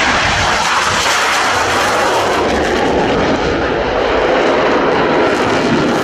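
MiG-29 fighter jet flying a low, fast pass, its two jet engines making a loud, steady rushing noise.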